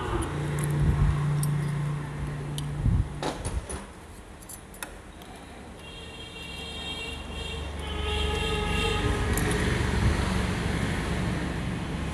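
Light metallic clinks of motorcycle clutch plates being handled and fitted, over the steady hum and rumble of road traffic, with a held tone from about six to nine seconds in.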